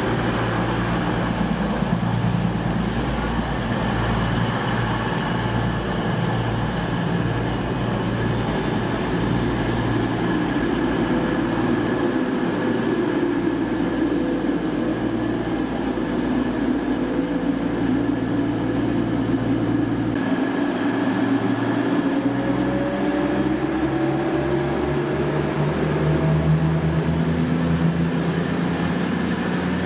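A train running at close range: a steady low drone and rumble, with a whine that rises in pitch over the last third.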